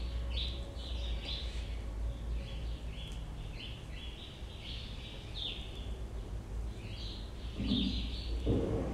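A bird chirping over and over in short, high calls, about two a second, over a steady low hum.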